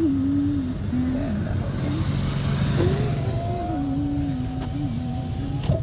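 Steady road and engine rumble inside a moving car's cabin, with a wavering tune carried over it.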